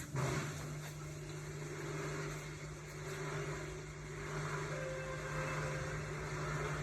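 Hotpoint-Ariston RSG 825 J washing machine running, a steady low motor hum.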